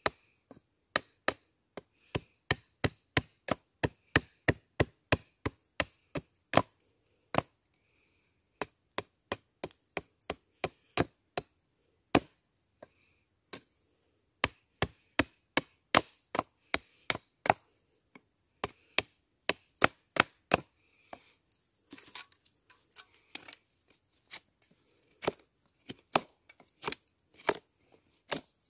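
A blade chopping into wood, a steady run of sharp strikes about three a second, broken by a couple of short pauses. Near the end, lighter irregular knocks fall between the strikes.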